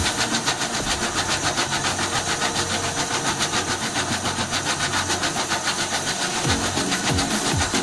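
Diesel engine of a Volvo wheeled skid steer running steadily with a rapid, even pulsing while it works an MB L120 crusher bucket. Short low sweeps fall in pitch near the end.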